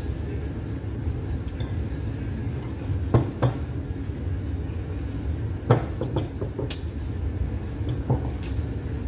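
Metal fork and knife clinking and scraping on a plate while cutting pizza. A handful of sharp clinks start about three seconds in, over a steady low background hum.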